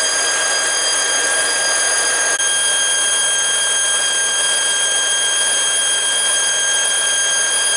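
Truck-mounted compressor running steadily with a constant high whine over a rush of air, pressurizing the tank trailer to blow its load out through the discharge hose. A brief click about two and a half seconds in.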